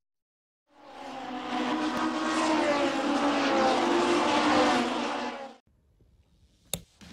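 Race car engine sound effect: a pass-by that swells up, runs loud with its pitch slowly falling, then fades out. A single sharp click near the end.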